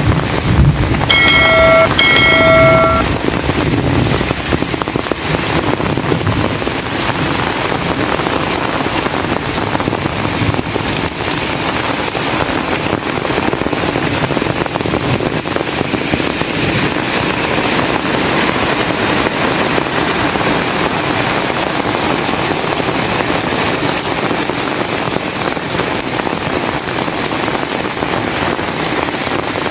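Heavy rain pouring steadily. About a second in come two short pitched beeps, one right after the other.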